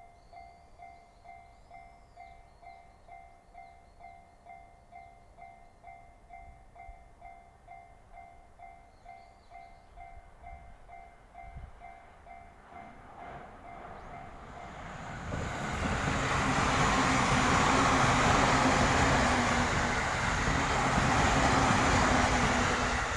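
Railway level-crossing alarm dinging a little over twice a second. About 13 seconds in, a train approaches, and its loud rumble and rail noise swamp the alarm through the end.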